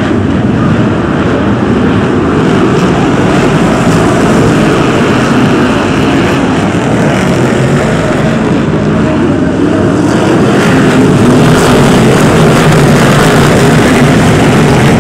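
A pack of BriSCA F1 stock cars racing, many big V8 engines running at once in loud, continuous engine noise that grows a little louder about ten seconds in.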